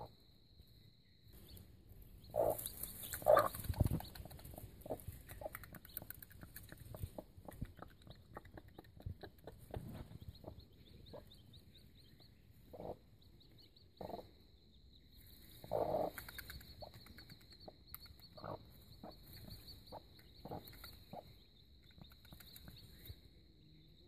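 Mother hen clucking in short low calls now and then, the loudest about three seconds in and again near sixteen seconds. Newly hatched chicks keep up a high, rapid peeping underneath.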